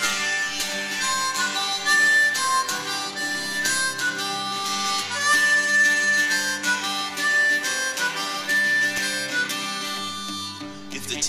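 Harmonica solo, a run of held and bending notes, over a strummed acoustic guitar accompaniment.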